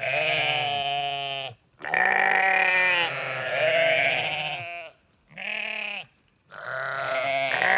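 Sheep bleating: about four calls in a row. The second call is the longest, wavering in pitch, and the others are shorter and drop off at the end.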